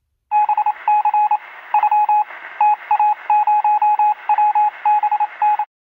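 Edited-in static sound effect: a radio-like hiss with a quick, irregular run of electronic beeps at one steady pitch, some short and some longer. It starts just after the beginning and cuts off suddenly near the end.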